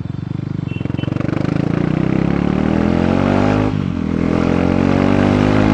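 KTM Duke 390's single-cylinder engine, with part of its exhaust removed, pulling away and accelerating with a bassy exhaust note that rises steadily in pitch. The note dips briefly about three and a half seconds in at a gear change, then climbs again.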